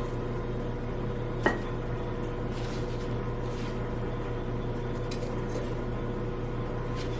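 Steady low electrical hum from a kitchen appliance, with one sharp clack about one and a half seconds in and a few faint scrapes, as the air fryer basket of cooked wings is handled.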